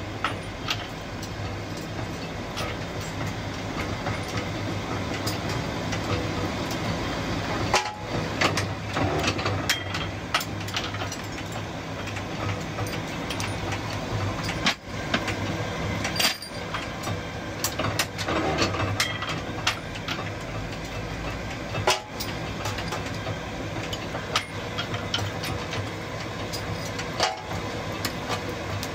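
Nail-making machinery in a workshop running with a steady hum, with irregular sharp metallic clicks and knocks scattered over it.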